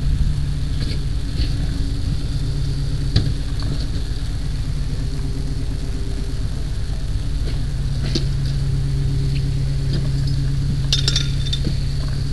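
Fire engine's motor running steadily with a low drone. A few sharp metallic clinks and knocks come through, the most about 11 seconds in.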